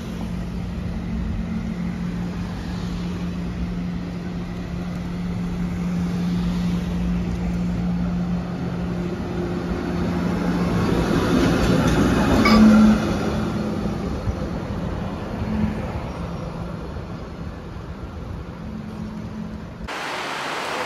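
A SEPTA Kawasaki-built trolley (light rail car) running along street track with car traffic, its steady hum growing louder as it approaches and passes, with a short, louder sound about 12 seconds in, then fading. Just before the end the sound changes abruptly to street traffic.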